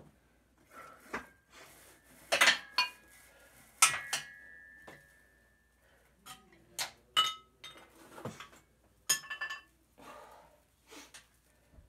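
Metal clips on a resistance band clinking and rattling as the band is handled and untangled. The clinks are sharp and irregular, some ringing briefly, with the loudest a couple of seconds in and again about four seconds in.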